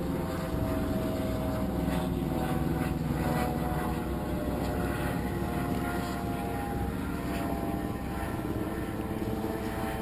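A steady engine drone: a low rumble carrying several held tones that shift slightly in pitch, over a constant rushing background of wind and water.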